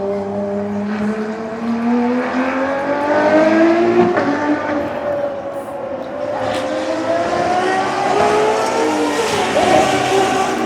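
Ferrari XX-programme V12 track cars accelerating on a race circuit, engine pitch climbing through the revs. There is a sharp drop at a gear change about four seconds in, and the pitch climbs again from about six seconds.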